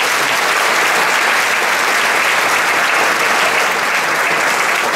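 Audience applauding steadily, a dense sustained clapping from a seated banquet crowd.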